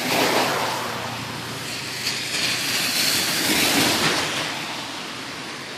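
Car tyres hissing on a wet road as vehicles pass: one swell just after the start and a louder one about three to four seconds in as a car passes close, then fading away.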